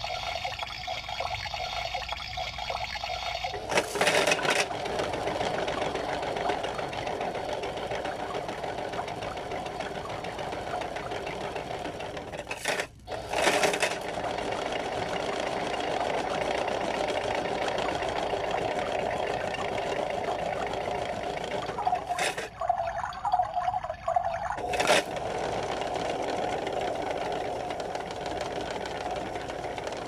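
Kid Connection toy washing machine running its eco programme: the drum motor whirs steadily, with short clicks and breaks in the run about 4, 13 and 22–25 seconds in.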